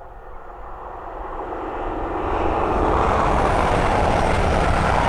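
East Midlands Railway Class 222 Meridian diesel multiple unit approaching at speed: a rumbling roar that builds over about two and a half seconds, then holds loud as the train passes close by.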